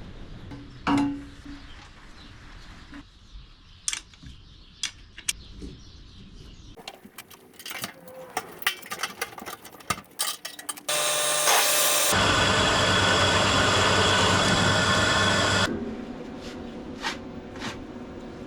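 Workshop tool sounds: scattered clicks and knocks of hand tools on metal parts, then a power tool runs loud and steady for about five seconds and cuts off.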